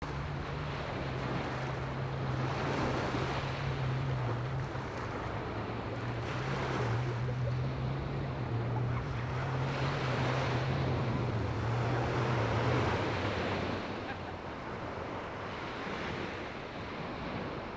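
Sea waves washing onto the beach, the noise swelling and easing every few seconds, with wind on the microphone. A low steady hum sits underneath and fades out about thirteen seconds in.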